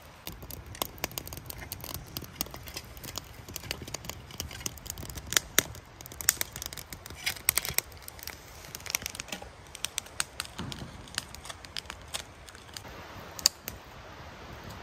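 Wood fire in a small metal box stove crackling, with many irregular sharp pops and snaps.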